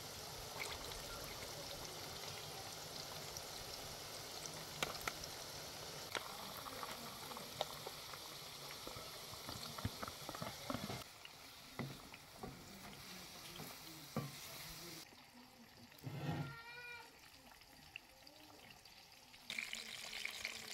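A steady hiss with scattered clicks and taps, then, after a cut to a quieter background, one short wavering meow-like animal call about three-quarters of the way through.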